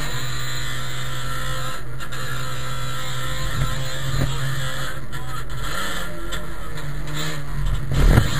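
Trabant race car's two-stroke twin engine under way, heard from inside the cabin. Its note steps down right at the start, then runs steady. A loud thump comes about eight seconds in.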